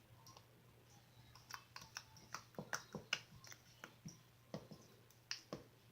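Glossy slime being worked by hand, giving a run of faint, irregular small clicks and pops, several a second, starting about a second and a half in.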